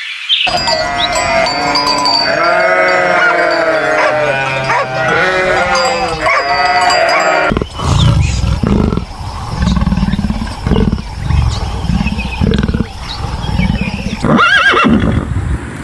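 Animal calls in two parts: first many overlapping, wavering pitched calls, then, from about seven and a half seconds in, a different animal's deep, low calls repeating about every two-thirds of a second.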